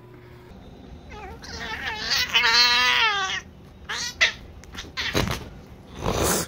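Domestic cat yowling: one long drawn-out yowl with a wavering pitch starting about a second in, then a couple of shorter cries. Short noisy bursts follow near the end.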